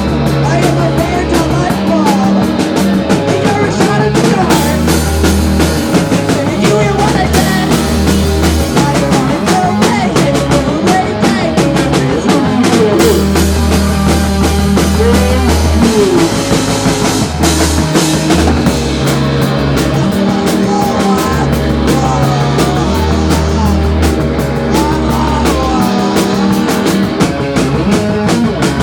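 Garage rock band playing loudly: a drum kit with crashing cymbals over bass and electric guitar, playing without a break.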